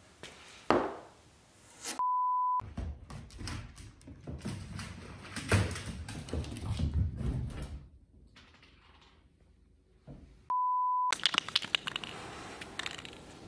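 A single wooden thunk as the wooden gate panel is handled, then a steady electronic beep about half a second long. Next comes irregular clatter and scuffling as a dog and a cat run on a hard floor, then a second identical beep.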